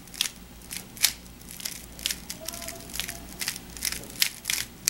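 Moves on an Aolong v2 3x3 speedcube turned by hand: a quick, uneven run of sharp plastic clicks as the layers snap through the Ub-perm algorithm R' U R' U' R' U' R' U R U R2.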